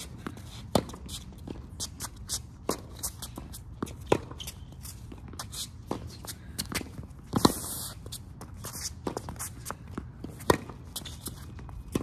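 A tennis rally: racquets strike the ball back and forth, with a louder hit about every three seconds and a fainter return between each pair. Quick footsteps and shoe scuffs on the court fill the gaps.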